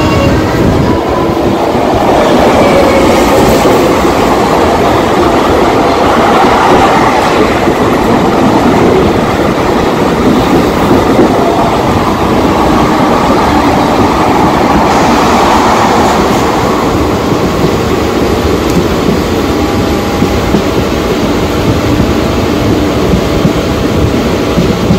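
Mumbai suburban local train running along the track, heard from aboard the moving coach: a loud, steady rumble and rattle of wheels on rails.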